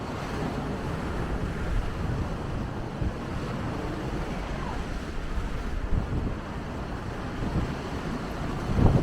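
Strong wind buffeting a small camera's built-in microphone, over a steady rushing wash of sea surf. Gusts peak about six seconds in and again near the end.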